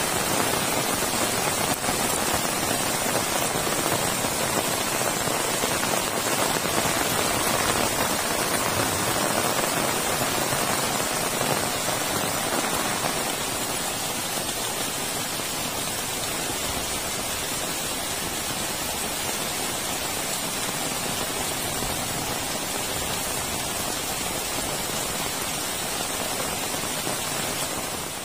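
Heavy rain falling steadily, with runoff pouring off a roof edge and splashing onto the ground. The downpour eases slightly about thirteen seconds in.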